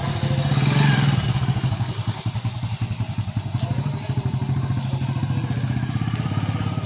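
Hero Splendor motorcycle's single-cylinder four-stroke engine running as the bike pulls away and rides off slowly. It grows louder about a second in, then runs evenly.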